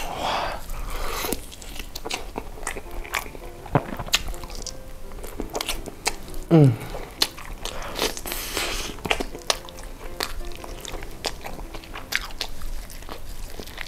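Close-miked eating of sauce-glazed fried chicken: bites, wet chewing and lip smacks with many small clicks, the sauced skin giving little crunch. About halfway through, a short falling tone is the loudest sound.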